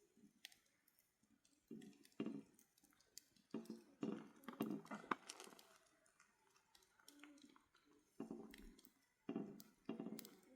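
Faint, broken-up voices with scattered small clicks and knocks.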